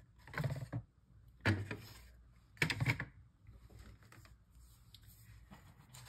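Handling noise from dollhouse kit parts moved about on a wooden tabletop: three short clattering knocks about half a second, a second and a half, and nearly three seconds in.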